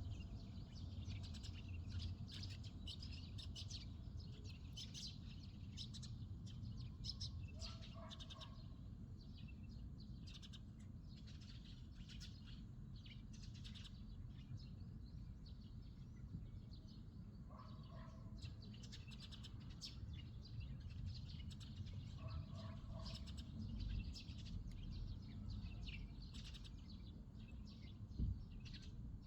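Small birds chirping and twittering in quick, dense bursts over a steady low rumble. A lower two-note call comes back about four times, and there is a single brief thump near the end.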